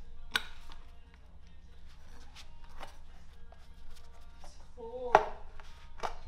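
Irregular clicks and knocks of gloved hands handling a throttle body intake pipe and its metal mounting bracket, over background music. A sharp knock comes about half a second in, and the loudest knock about five seconds in.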